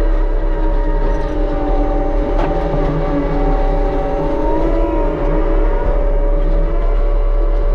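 Case skid steer running a Shearex forestry mulching head: a steady, loud machine whine with several wavering tones over the engine, and a short sharp knock about two and a half seconds in.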